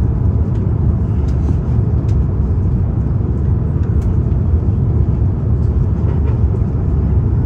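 Steady low rumble of an Airbus A350-941's Rolls-Royce Trent XWB engines and airflow, heard inside the passenger cabin on the approach to landing.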